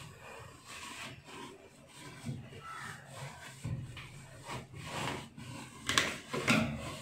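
A damp cotton cloth rubbed back and forth over a washing machine's surfaces in irregular strokes, scrubbing off detergent grime with a vinegar-and-water solution. A few strokes grow louder near the end.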